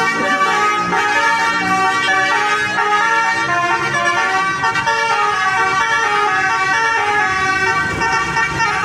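Basuri telolet air horn playing a tune, loud multi-tone notes that step up and down in pitch.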